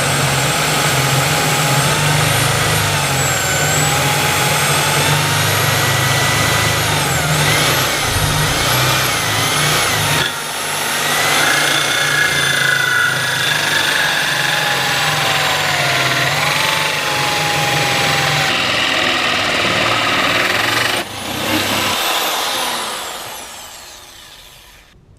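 Power drill driving a 51 mm hole saw through a wooden panel, a steady grinding noise with a whine that wavers in pitch as the load changes. About 21 seconds in the cutting stops and the sound dies away.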